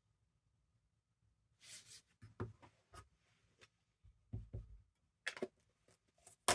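Quiet handling of craft supplies on a desk: after a couple of seconds of near silence, a short paper rustle, then a few soft knocks and taps and some sharp clicks, the loudest click at the very end.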